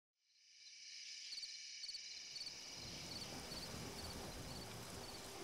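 Crickets chirping faintly in a steady night-time chorus, starting about half a second in.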